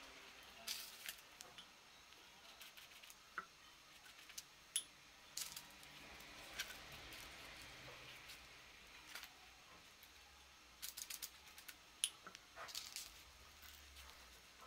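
Faint rustling and crinkling of baking paper and filo pastry being folded by hand, with scattered small clicks and taps.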